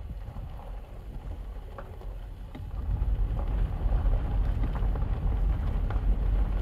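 Low road and wind rumble from a slowly moving car, with wind on the microphone; it grows louder a little under halfway through.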